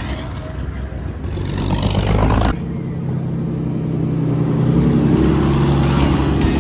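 Vintage racing car's engine running as the car drives past, a deep, steady note that grows louder and rises slightly in pitch toward the end.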